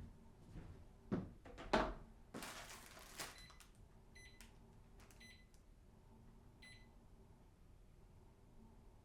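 A few knocks and clunks and a short rushing noise, then a household appliance's control panel beeping four times with short electronic beeps as its buttons are pressed.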